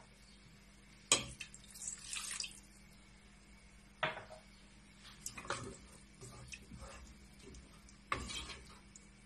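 Wooden spoon knocking and scraping against the side of a metal pot as tomato sauce is stirred. There are sharp knocks about a second in, at about four seconds and again near the end, with short rasping scrapes between them.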